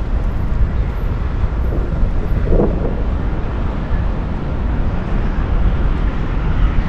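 Wind noise on the microphone of a camera riding on a moving bicycle: a steady low rumble that wavers in level. A short mid-pitched sound comes about two and a half seconds in.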